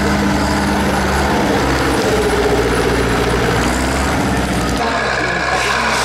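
Farm tractor diesel engine running, a steady low drone; about five seconds in it changes abruptly to another tractor's engine.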